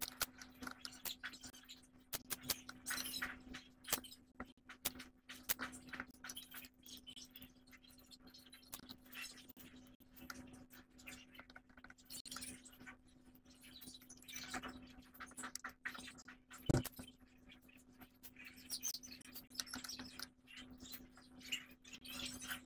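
Birds chirping in short, scattered calls over a steady low electrical hum, with light clicks and scratches and one sharp knock about two-thirds of the way through.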